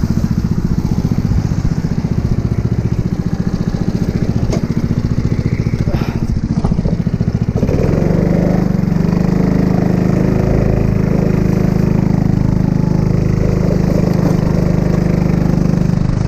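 Go-kart's small engine idling with a fast, even chugging while the kart sits stopped against the tyre barrier. About eight seconds in it gets louder and runs steadily under throttle as the kart pulls away.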